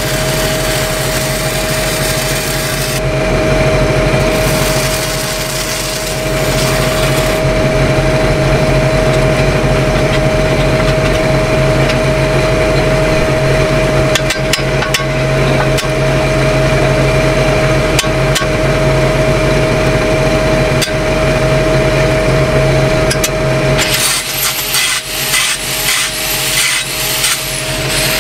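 Arc welding on 12-inch steel pipe: the welding arc sizzling with a steady hum. About 24 seconds in the arc stops and rhythmic scraping strokes on the joint follow, roughly two a second.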